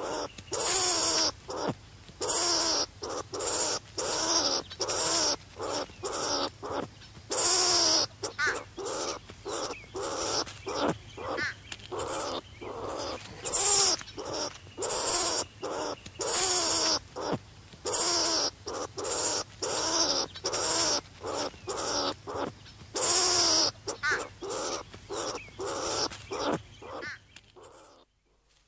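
Skunk squeaking: a long run of short, harsh, squeaky calls, about two a second, that stops just before the end.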